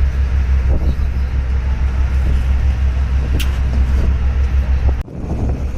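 A large engine running steadily with a loud, pulsing low rumble. It drops out abruptly for a moment about five seconds in, then resumes.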